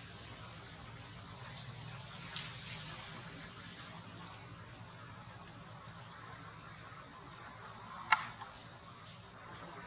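Steady high-pitched drone of insects, with faint scattered ticks and one sharp click near the end.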